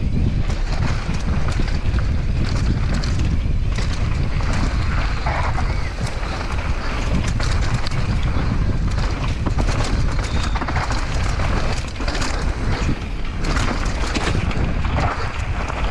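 Downhill mountain bike descending a dirt trail at speed: heavy wind buffeting on the action camera's microphone, with tyres running over dirt and frequent clatters and knocks from the bike over bumps.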